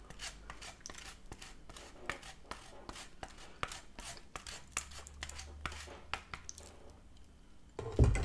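Close-up eating sounds: a run of sharp clicks and crunches a few times a second, then a low thump near the end.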